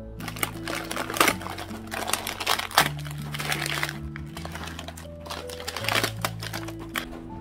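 Crinkling and rustling of sterile syringes' plastic packaging being handled and opened, with the sharpest crackles about a second in and near three seconds, over background music.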